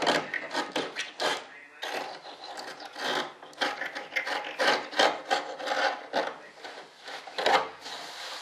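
Hand sanding along the leading edge of a molded RC jet wing: rhythmic rasping strokes, about three a second, with a short pause near two seconds in.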